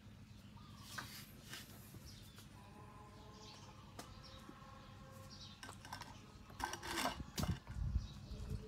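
Puppy eating pieces of vegetable: a cluster of louder wet chewing and mouth clicks near the end, with a few single clicks before it. Faint bird chirps and a low steady hum underneath.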